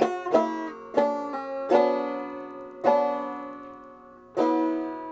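Open-back five-string banjo, tuned a half step below open G, played slowly one note at a time. There are about seven single notes, each plucked sharply and left to ring and fade. Two quick pairs come in the first two seconds, then the notes are spaced more widely.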